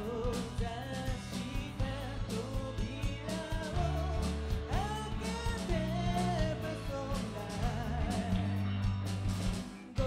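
Live rock band playing: a woman singing the lead melody over electric guitars, bass and drum kit, with a brief break just before the end.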